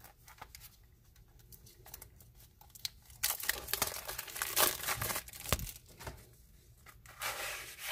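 Clear cellophane shrink-wrap being torn and peeled off a cardboard matchbox, crinkling in irregular bursts that are loudest from about three to five and a half seconds in.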